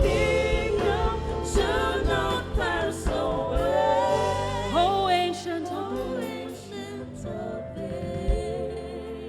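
Gospel worship singing with instrumental backing, getting quieter in the second half.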